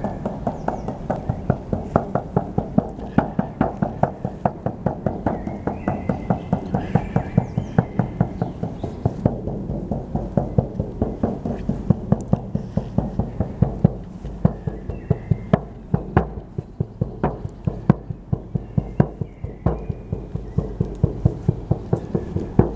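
Frame drum (buben) beaten in a fast, steady rhythm of about three to four strokes a second, the beating growing sparser and less even in the second half.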